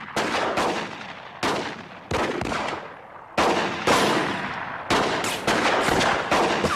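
Gunfight gunfire: about a dozen shots in quick, irregular succession, several close together near the middle and end, each trailing off in a ringing echo.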